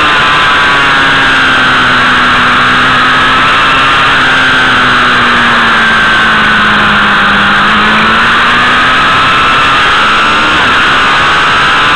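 Motorcycle engine running at speed under heavy wind rush on the microphone, its pitch sinking slowly through the middle and climbing again toward the end.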